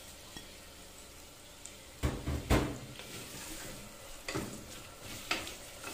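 Sliced onions and whole spices frying in oil in a pressure cooker, with a wooden spoon stirring and scraping against the pot. The spoon knocks several times from about two seconds in, loudest around the middle.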